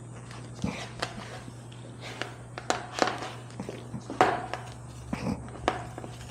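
Tire-plug rasp tool being pushed and twisted in and out of a nail hole in a motorcycle tire, giving about eight irregular scraping clicks over a steady low hum.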